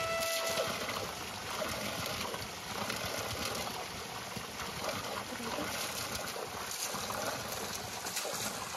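Water pouring steadily from a spring's pipe spout and splashing onto stone below, a continuous rush.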